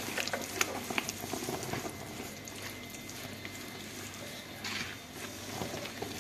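A hand working flour into a wet butter-and-liquid mixture in a large basin as more flour is poured in: soft, irregular patter and small crackles, busier in the first two seconds.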